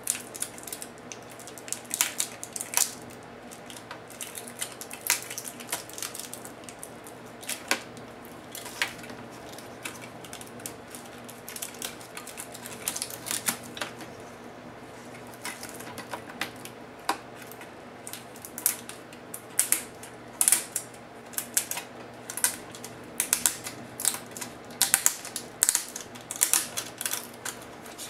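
Foil-backed adhesive tape and the ribbon cable being peeled and crinkled off the back of a laptop LCD panel: irregular sharp crackles and snaps, coming thicker in the second half.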